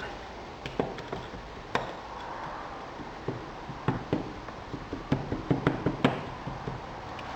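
Ramming stick striking moulding sand packed around a pattern in a casting flask: a series of irregular short knocks, coming quicker about four to six seconds in.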